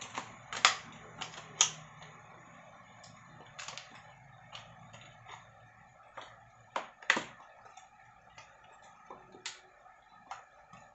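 Stiff clear plastic blister pack around a hand riveter crackling and clicking as it is turned over in the hands, in a string of irregular sharp clicks, the loudest about half a second in, near one and a half seconds and around seven seconds.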